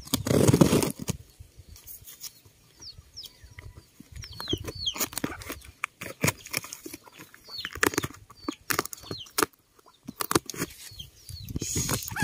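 Pruning shears snipping and slicing through packing tape and cardboard on a shipping box, with crackling and rustling as the box is cut open. Short, high, falling bird chirps repeat in the background.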